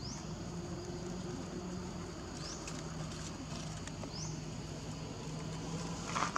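Dry leaf litter rustling and crackling as monkeys move and handle leaves on the forest floor, over a steady low hum. A few short rising high chirps come through, and there is a brief, sharper, louder sound near the end.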